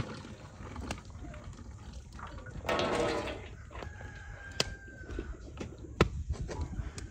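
A rooster crows once about three seconds in. Around it come sharp knocks and clanks and a little dripping as a whole boiled cabbage is lifted dripping from its pot into an aluminium basin and cut at the core with a knife.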